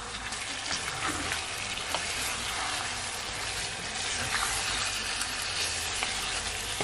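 Chicken pieces frying in a pan of caramelized brown-sugar sauce over raised heat, a steady sizzle with a few faint clicks as they are stirred.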